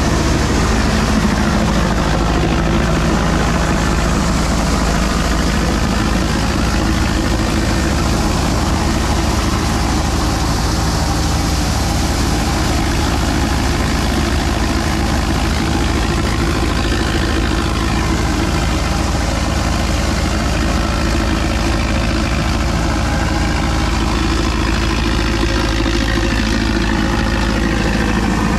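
Tractor-driven thresher running steadily under load while crop is fed in: the tractor's engine turning the machine's drum through the PTO, an even, unbroken machine din.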